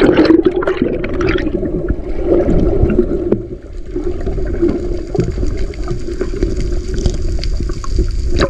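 Splashing as an action camera plunges into the sea, then the dull, muffled rush of water heard from the submerged camera for several seconds. Near the end it breaks back above the surface.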